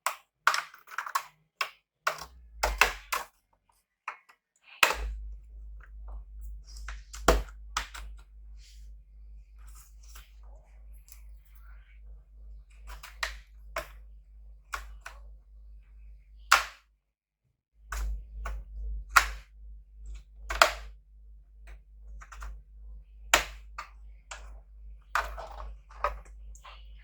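Sharp plastic clicks and snaps as a plastic pry tool is worked along the seam of an ASUS VivoBook Max laptop's case, popping its clips apart. The clicks come at irregular intervals, sometimes several in quick succession.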